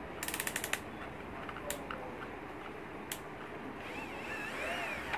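The front collar of a Flipkart SmartBuy YLCD-1820 20 V cordless drill being turned by hand, giving a quick run of about ten ratcheting clicks, then two single clicks a little later.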